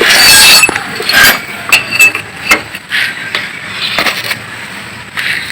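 Metal clinks and knocks of hand tools and loose engine parts being handled, with a short noisy burst at the start and scattered sharp clicks after it.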